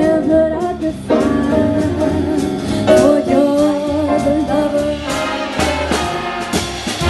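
Big-band jazz orchestra of trumpets, trombones, saxophones and drum kit playing a swing number with a singer. Held, singing melody lines give way about five seconds in to a run of short, punchy band chords.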